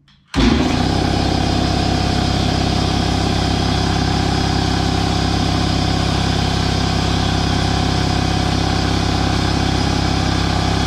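Ingersoll Rand 60-gallon, 5 hp electric stationary air compressor (model SS5L5) switching on about half a second in and running steadily at full load, its motor and belt-driven pump filling the empty tank on its first start-up.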